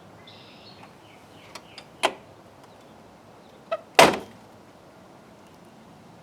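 Sharp clicks and knocks of plastic parts being handled as a Jeep Wrangler JK's plastic grille is worked loose: a few light clicks, a louder knock about two seconds in, and the loudest knock about four seconds in with a short ring after it.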